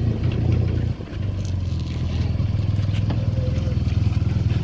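A motor running steadily with a fast low pulse, dropping out briefly about a second in.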